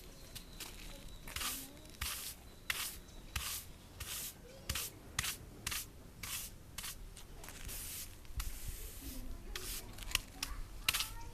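Short, gritty scrapes and crunches on fallen volcanic sand, irregular at about one or two a second, with a longer hissing scrape about eight seconds in.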